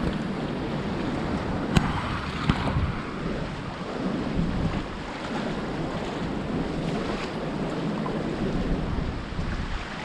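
Wind buffeting the microphone over sea waves washing against the concrete tetrapods of a breakwater. Two short sharp knocks sound about two seconds in.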